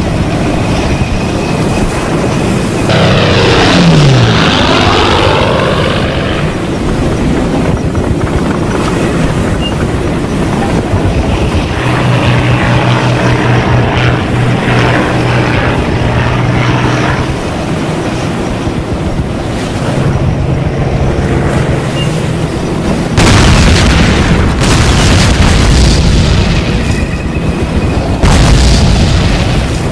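Film battle soundtrack of an amphibious landing: a steady low engine drone from the landing craft, a sweep falling in pitch about four seconds in, and heavy explosions from about two-thirds of the way through.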